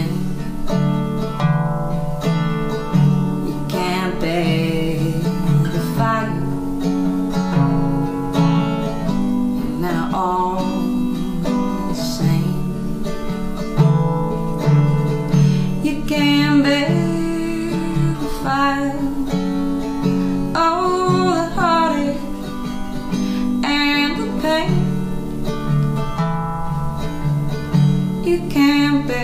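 A woman singing over a strummed resonator guitar, a steady chord accompaniment with her sung lines coming and going.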